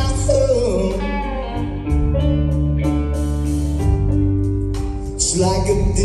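Live blues band playing: electric guitars and drums with a man singing; the vocal line comes in at the start and again near the end over steady guitar chords and regular drum beats.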